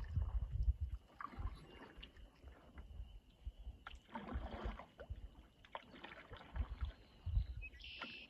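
A canoe being paddled quietly across calm water: soft paddle strokes and water swishing, with a few light knocks and intermittent low rumbles.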